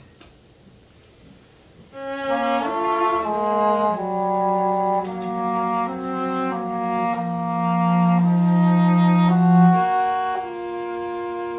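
Cello and English horn playing chamber music. After a quiet pause of about two seconds the two enter together, a moving melody over a long-held low note, then settle into softer sustained notes near the end.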